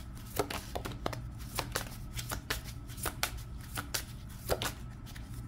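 A deck of tarot cards being shuffled by hand: a string of sharp card flicks and taps at an uneven pace, a few each second.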